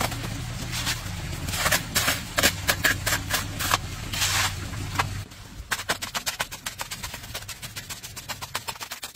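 Steel shovel scraping through and turning wet cement-sand mortar, with a low hum beneath. About five seconds in the hum stops and the shovel gives a quick run of light, evenly spaced knocks, several a second, as it pats mortar down into a wooden form.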